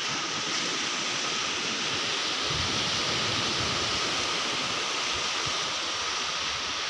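Small waves breaking and washing up on a sandy beach: a steady, even rushing hiss.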